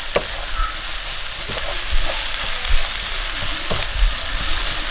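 Sliced onions with curry leaves, ginger, garlic and green chillies sizzling in hot oil in a nonstick kadai, a steady hiss, as a spatula stirs them, knocking and scraping against the pan about once a second. The onions are raw and just salted, at the start of being sautéed soft.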